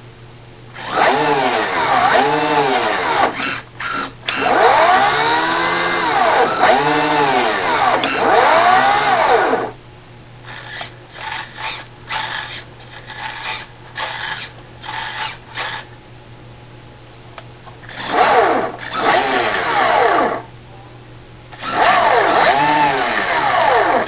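Electric motor and metal gear drive of a 1990s MRC Turbo Vee RC boat running dry, out of the water, with a whine that is revved up and down again and again through its wound-resistor speed control. In the middle it is blipped in short bursts, with brief pauses where the motor stops.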